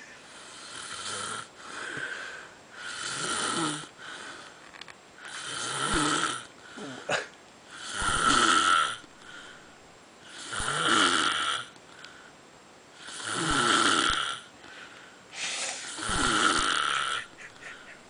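A sleeping man snoring, about one loud snore every two and a half seconds, with softer breaths between.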